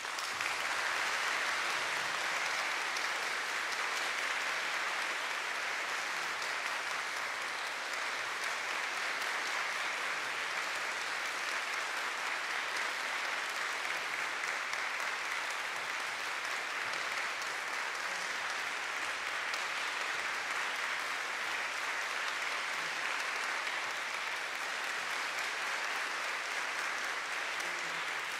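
Concert hall audience applauding, a dense, even clapping that holds steady.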